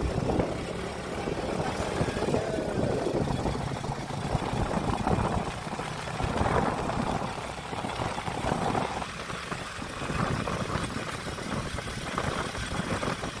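A motor vehicle's engine running, with rumbling road noise.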